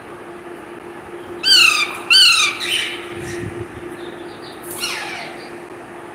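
Parrot squawking: two loud harsh calls in quick succession, then a fainter, falling call a few seconds later.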